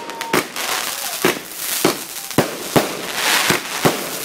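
Aerial fireworks going off: a string of about seven sharp bangs at uneven intervals over a continuous crackling hiss.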